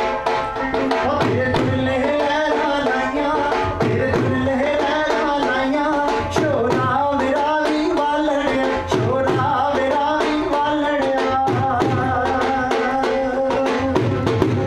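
Punjabi folk music for a Jhumar dance: a steady drum beat under a wavering melody line.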